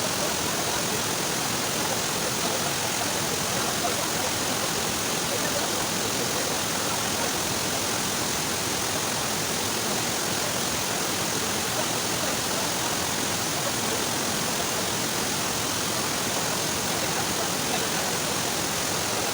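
Waterfall's water rushing, a steady even noise that holds level throughout.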